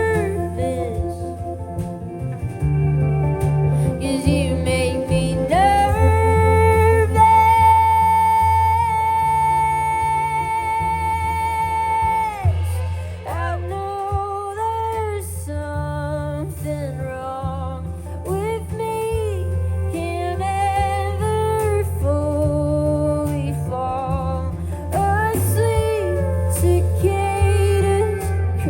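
A woman singing a slow song with guitar accompaniment, holding one long note from about six to twelve seconds in.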